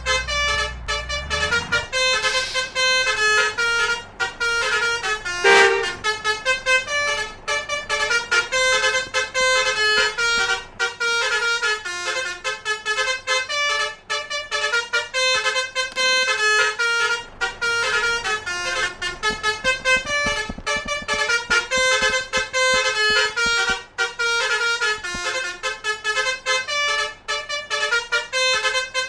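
Telolet bus horns, Basuri-type multi-tone horns, playing quick stepping melodies non-stop, with several notes sounding together. A low rumble lies under the first second or so.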